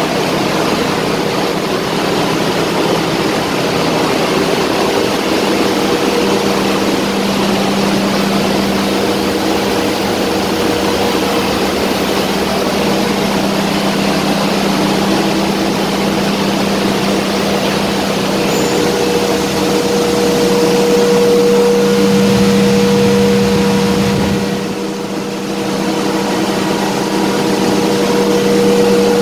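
Steady, loud machinery noise of a ship's engine room: a continuous hum with two held tones, dipping briefly near the end.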